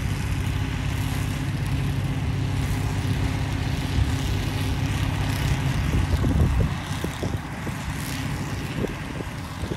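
Small engine of a grass-cutting machine running steadily, then dropping away about seven seconds in, with wind rumbling on the microphone afterwards.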